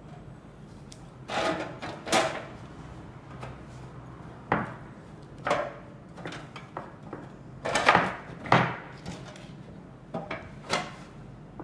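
Parts of a manual string hopper machine being handled and fitted back together: a series of irregular knocks and short scraping clatters, loudest about eight seconds in.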